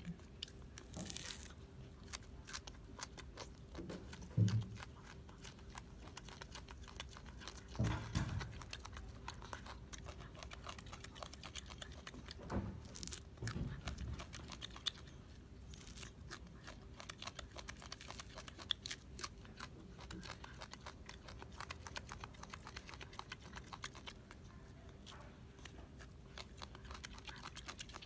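A golden snub-nosed monkey eating, with faint crunching and chewing, scattered small clicks and a few soft thumps.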